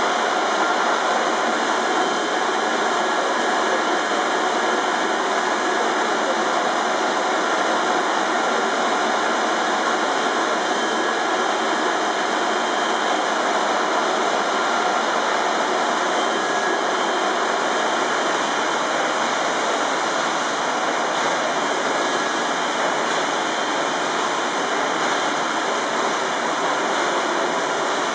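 Steady rushing noise from the exhauster (vacuum pump) driving the 1878 Godard & Massey compound rotative beam engine. The pump draws a vacuum on the engine's exhaust, and atmospheric pressure pushes the piston instead of steam. The noise holds even throughout, with no distinct beat from the engine's strokes.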